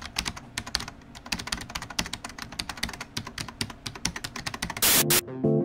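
Fast, irregular clicking of typing on a computer keyboard, several keystrokes a second. Near the end a loud, short burst of noise cuts in, and plucked bass guitar notes begin.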